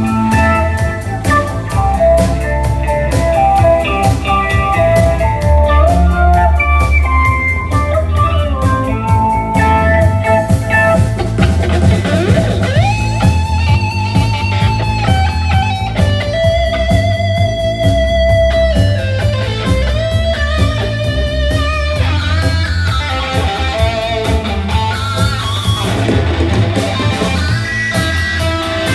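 Band music: a lead electric guitar plays held, sliding notes over bass and drums, with a rising slide into a long note about twelve seconds in.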